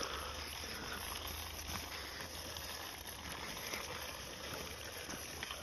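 Plastic toy tractor and trailer pushed by hand along a concrete ledge: a faint, steady rolling noise from the small plastic wheels, with a few light clicks.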